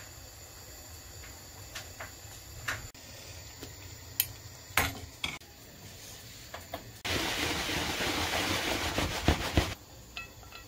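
Kitchen clatter: a few sharp clinks and knocks of utensils against a pot or bowl. This is followed by about three seconds of loud, steady rushing noise with two knocks near its end, which cuts off suddenly.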